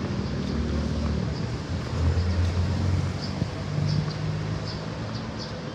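Motor vehicle engine running, a low hum that shifts in pitch a couple of times, over steady road noise.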